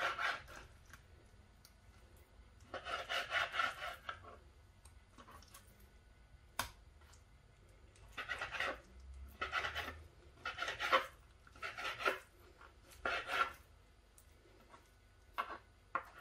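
Kitchen knife sawing through raw chicken breast on a plastic cutting board: short scratchy bursts of back-and-forth strokes with quiet pauses between cuts, and one sharp tap a little before halfway.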